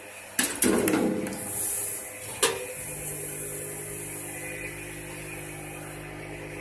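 Soap powder packing machine's stainless steel four-hopper weigher at work. Several sharp metallic clicks and a rush of sliding noise come in the first second or so, then another click about two and a half seconds in. After that there is a steady machine hum while blue detergent powder pours through the funnel.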